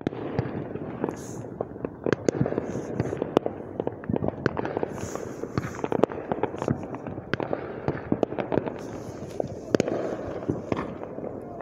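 Fireworks display going off across a lake: a dense, irregular run of sharp bangs and crackles, several a second.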